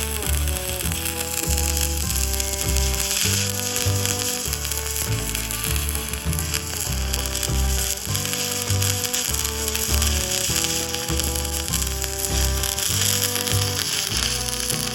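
Steady crackling sizzle of an electric welding arc, under background music with a bass line and sustained melody notes.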